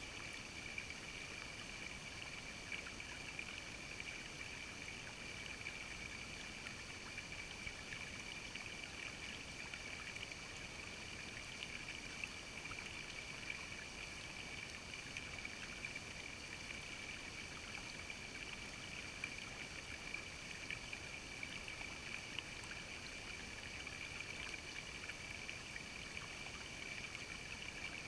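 Shallow creek water running and trickling over rocks close by, a steady babble with small splashing ticks.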